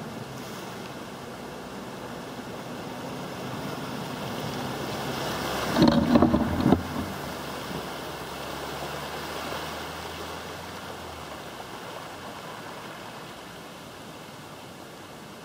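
A four-wheel drive's engine drones as it drives through a shallow river, its bow wave rushing and splashing. The sound builds to a loud burst of splashing as the vehicle passes closest, about six seconds in. The engine then fades away, leaving the wake washing over the crossing.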